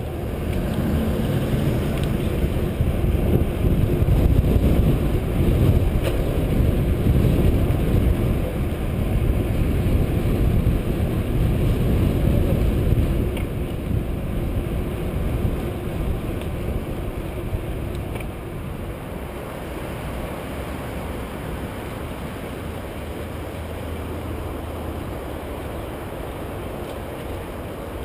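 Wind rushing over the microphone of a camera on a moving mountain bike, mixed with tyre rolling noise. It is strongest in the first half and drops to a steadier, lower rush about halfway through.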